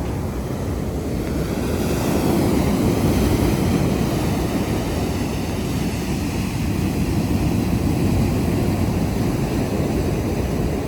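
Low rumbling wind on the microphone mixed with surf, swelling louder twice.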